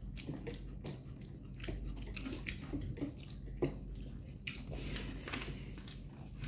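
Chewing and mouth sounds of people eating spicy noodles, with scattered small clicks and soft smacks over a low steady hum.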